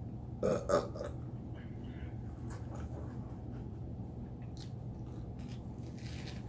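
A loud burp in two quick pulses about half a second in, followed by faint crunchy chewing of a bacon, lettuce and tomato sandwich.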